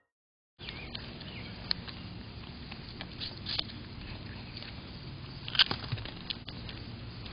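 Groundhog eating a piece of red fruit close to the microphone: short chewing clicks over a steady outdoor hiss, starting after a brief silence, with one louder sharp sound about five and a half seconds in.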